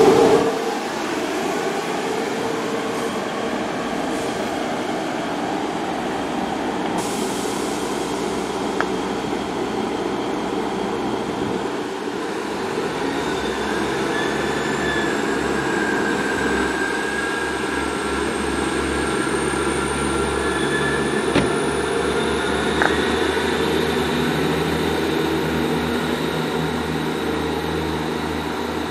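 Diesel multiple unit train running into a station: a steady rumble, with a thin high whine that rises in pitch from about halfway through and a couple of faint clicks near the end.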